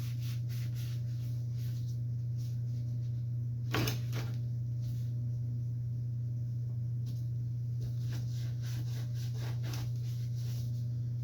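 Steady low hum under a few light knocks and clatters of chop-saw parts being handled during cleaning, the loudest knock about four seconds in.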